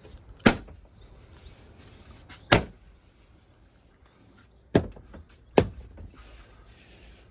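Plastic inner liftgate trim panel of a Toyota RAV4 being struck to seat it, pushing its retainer clips home. Four sharp knocks, the last two close together.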